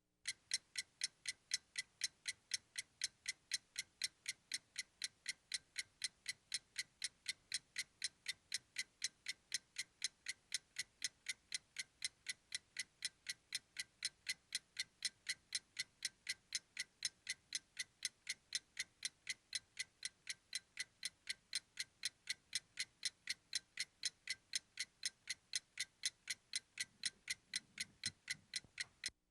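Clock ticking steadily, about three sharp, even ticks a second.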